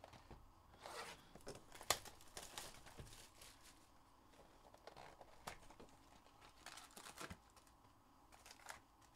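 Faint rustling and clicks of a cardboard trading-card hobby box being handled and opened, its flaps and foil packs moving, with one sharper click about two seconds in.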